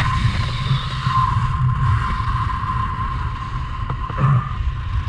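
Wind rushing and buffeting over the camera microphone under an open parachute canopy, a steady low rumble with a thin steady tone running through it and a brief gust a little after four seconds.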